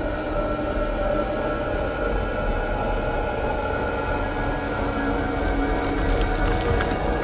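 Dark, droning background score: low held tones over a rumbling bed that stays level, with a scatter of sharp clicks coming in near the end.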